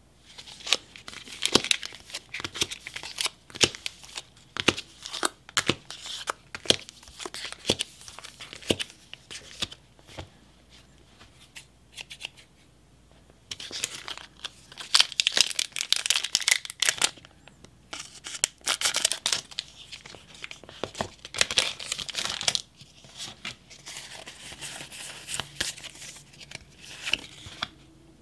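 Foil wrappers of Pokémon card booster packs crinkling as they are handled: first a run of short, sharp crackles, then from about halfway long stretches of dense crinkling and tearing as a pack is cut open with scissors and its wrapper pulled apart.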